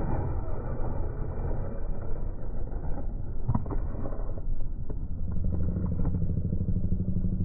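RLAARLO ROG1 RC car driving on pavement: a steady, dense rumble from its tyres and drivetrain, with a few sharp knocks about three and a half seconds in.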